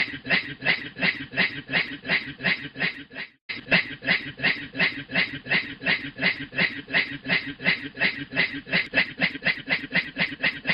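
A man imitating a steam train with his voice: a steady, rhythmic chuffing of about four to five puffs a second over a low hum, which cuts out suddenly for a moment about three seconds in and then picks up again.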